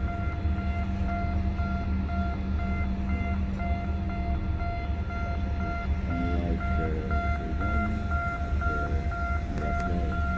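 Low, steady rumble of marine engines from the tugboat and ship in the lock, with a high electronic beep repeating evenly a few times a second over it. Faint distant voices come through about six seconds in and again near the end.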